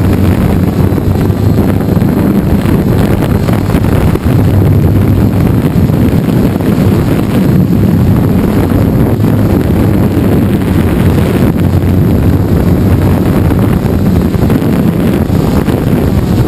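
Gaui 330X-S quadcopter's electric motors and propellers buzzing steadily, heard up close from the GoPro mounted on it, with wind rushing over the microphone.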